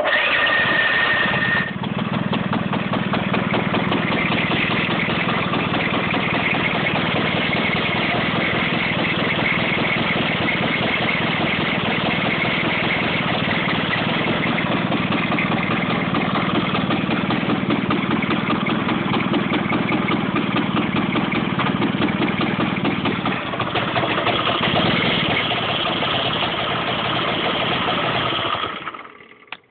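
Kymco Agility scooter's single-cylinder engine, covers off, running steadily at idle, then dying away about a second before the end.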